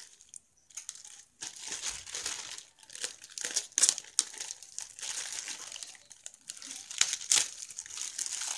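Clear plastic bag crinkling and rustling as it is handled and opened around a parcel, starting about a second and a half in, with a few sharper, louder crackles.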